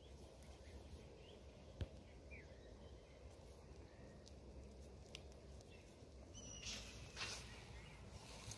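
Near silence outdoors: faint bird chirps and soft clicks and rustles of a nylon gill net being handled, with one sharp click about two seconds in and a short rustling burst near the end.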